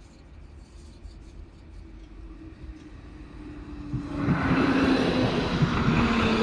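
Modern low-floor electric tram approaching and passing close by on ballasted track: a faint distant rumble swells sharply about four seconds in into loud wheel-on-rail rolling noise, with a faint steady humming tone under it.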